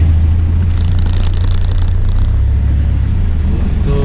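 Engine of an off-road 4x4 running steadily as it drives along, heard from inside the cabin, with a rattling clatter for about a second and a half starting about a second in.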